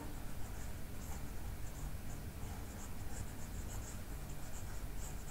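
Stylus scratching in many short, faint strokes across a tablet screen as the handwriting on the screen is erased, over a low steady hum.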